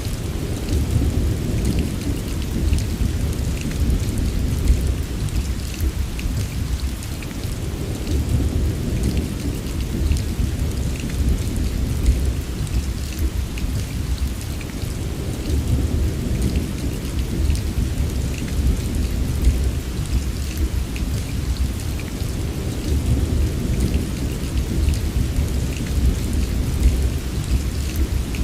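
Heavy rain falling steadily, with a deep, continuous rumble of thunder underneath and fine drop ticks scattered through it.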